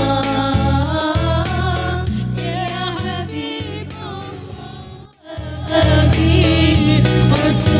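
Music with singing over a steady percussion beat fades out over the first five seconds. After a brief dip, a group of female voices singing sholawat over a percussion beat comes in about six seconds in.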